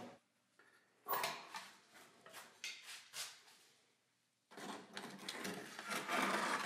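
An electric heat-treating oven being opened and a foil-wrapped steel blade packet handled with tongs inside it for normalizing: short crinkling, scraping and clinking noises in two bouts, about a second in and again after a brief pause past the fourth second.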